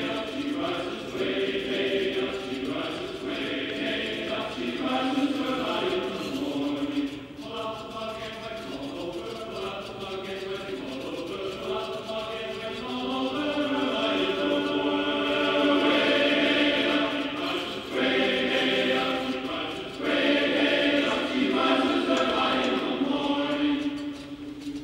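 Choral chanting music: a group of voices singing long held notes that shift in pitch every second or two. It fades out near the end.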